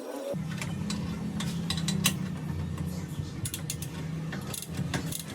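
2x48-inch belt grinder running with a steady low motor hum that starts abruptly about a third of a second in, with scattered light metallic clinks and rattles over it.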